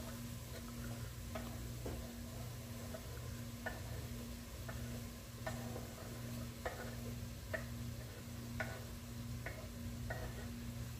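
Chopped onion being pushed off a wooden cutting board into a stainless steel pot of cooked ground beef: light, irregular taps and knocks about once a second as the board and pieces hit the pot, over a steady low hum.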